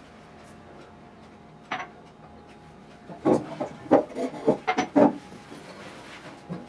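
A jacket being pulled on: a single tap, then a quick run of short rubbing and rustling sounds lasting about two seconds.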